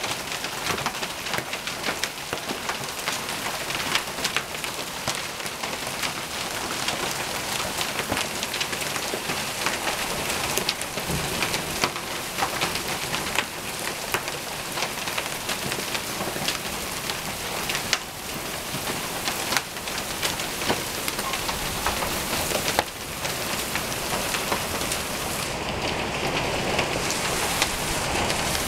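Hail pelting down in a heavy hailstorm: a dense, steady clatter of small impacts, with sharper single hits scattered through it.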